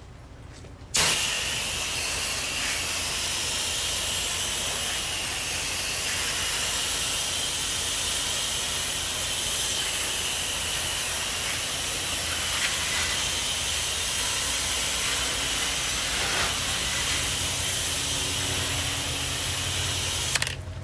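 Pressure washer spray wand shooting water at the screen enclosure: a steady loud hiss that starts abruptly about a second in and cuts off near the end, over a steady low hum.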